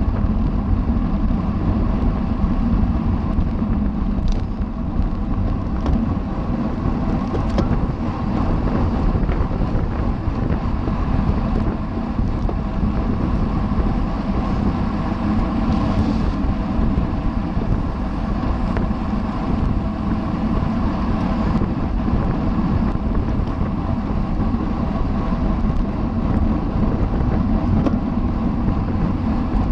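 Steady wind rush and road noise on a camera riding with a racing bicycle in a criterium, with a few faint clicks.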